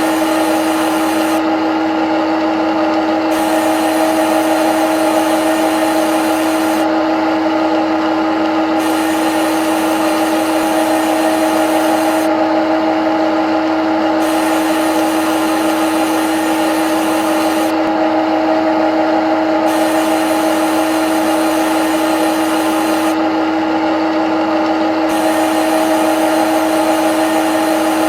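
CNC lathe running with a steady whine over constant machining hiss. The high hiss falls away briefly in a regular cycle about every five and a half seconds.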